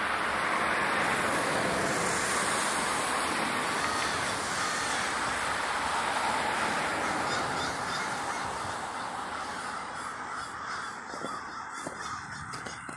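A large flock of American crows at their roost, many birds cawing over one another in a continuous din. It grows fainter over the last few seconds.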